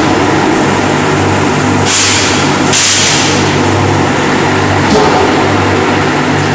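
Airless paint sprayer's pump running with a steady mechanical hum, with two short bursts of spray hiss about two and three seconds in.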